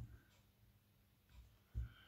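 Near silence: faint handling noise from hand stitching through fabric, with a soft low bump at the start and another near the end.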